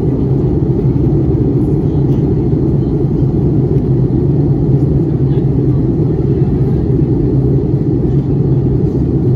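Steady, loud rumble of engine and airflow noise inside an airliner cabin during the descent, with a constant low hum under it.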